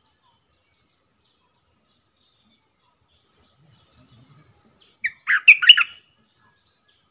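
Stripe-throated bulbul singing: a loud, quick burst of bubbling whistled notes about five seconds in, after a fainter, high, thin twittering.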